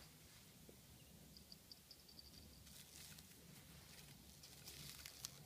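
Near silence: faint room hum, with a short run of faint light ticks in the middle and a faint soft rustle near the end.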